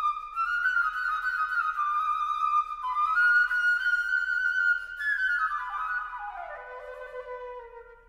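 Solo flute playing a melody in its middle-upper range, then a falling run about five seconds in that settles on a low note, which fades near the end.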